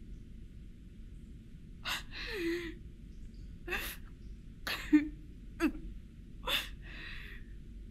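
A woman sobbing: about six sharp, breathy sobs and gasps, some with a short falling whimper, starting about two seconds in.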